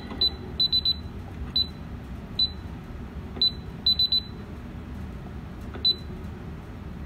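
DSC Maxsys alarm keypad beeping once for each key pressed: about a dozen short, high-pitched beeps, irregularly spaced, some in quick runs of three.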